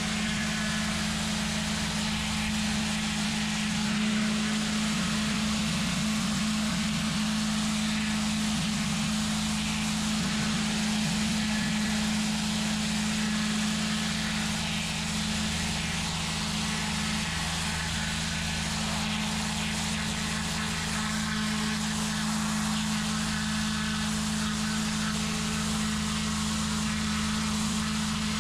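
Pressure washer running steadily: the hiss of the high-pressure water jet striking block paving over a constant low hum from the machine.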